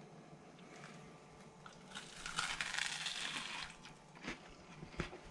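A bite into a BLT sandwich on toasted bread: a loud crunch lasting about a second and a half, then a few chewing sounds.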